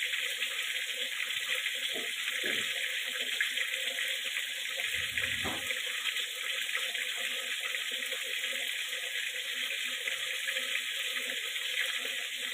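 Steady hissing noise with no breaks, and a few dull thumps; the loudest, about five seconds in, is the refrigerator door being pushed shut.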